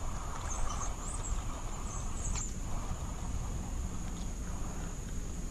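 Steady high-pitched drone of insects in the summer woods, with a few short high chirps about a second in and again just past two seconds, over a low rumble.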